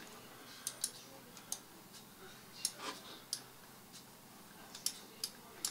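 Faint, irregular single clicks of a computer mouse, about ten of them, as the CAD model is worked on screen.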